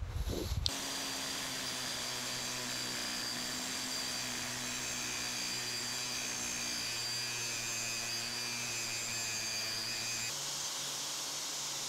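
Small electric angle grinder running steadily with its abrasive disc against cast iron, grinding out a crack in a steam chest casting down to sound metal for brazing. Its tone changes about ten seconds in.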